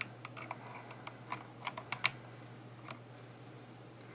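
Small, sharp metal clicks from an old Mosler safety deposit lever lock being worked with its key while the lid is off: several irregular clicks as the loose parts shift and catch.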